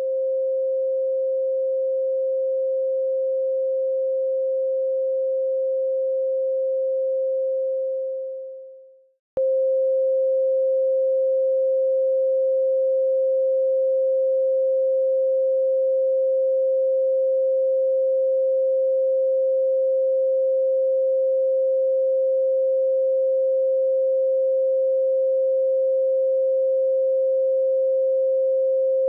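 A steady 528 Hz pure sine tone. It fades out about eight seconds in, a short click follows, and the tone cuts back in abruptly and holds.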